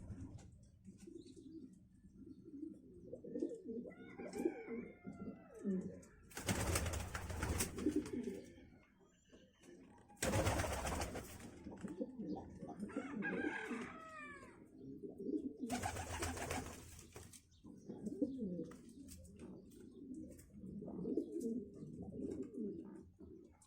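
Pigeons or doves cooing over and over, with another bird calling twice in higher, arching notes. Three loud, two-second rushing noises break in.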